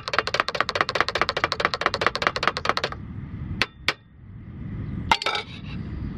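Rapid, even ticking that stops about three seconds in. Two sharp clicks follow, then a low rumbling noise.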